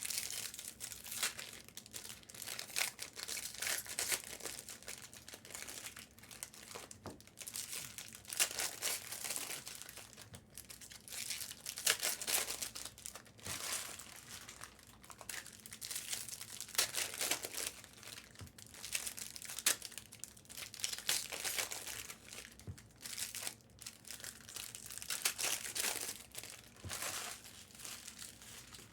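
Foil trading-card pack wrappers crinkling and tearing as packs are ripped open and handled, in irregular bursts.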